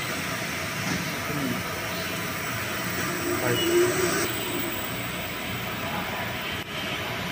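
Steady machinery noise in a fire-pump plant room: an even rumble with a hiss over it.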